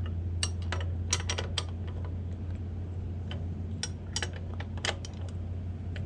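Irregular light metallic clicks and ticks from a combination wrench working the saddle clamp nuts tight on a bicycle seat post, over a steady low hum.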